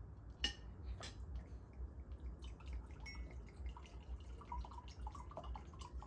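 Tea pouring from a teapot into a mug, a faint trickle, with a couple of light clicks of dishware early on.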